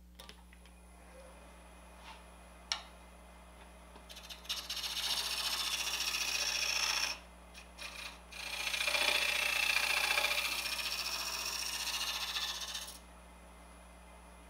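Scraper cutting the spinning wood of a bottle neck on a wood lathe: two hissing passes of a few seconds each, with a short break between them, shearing off shavings to lengthen the neck. A single sharp click comes about three seconds in.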